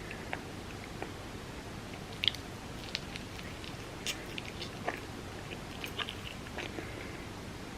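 Close-miked eating sounds: a person biting and chewing dessert, with scattered short, sharp wet clicks from the mouth. The sharpest comes a little over two seconds in.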